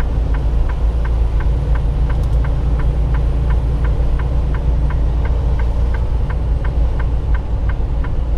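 Steady low engine and road drone inside a semi-truck cab at highway speed, with a flasher relay ticking evenly, about three ticks a second.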